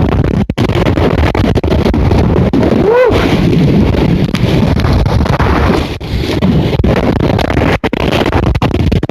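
Storm-force wind buffeting the microphone, a loud, dense rumble with a couple of brief dropouts. About three seconds in, a short tone rises and falls.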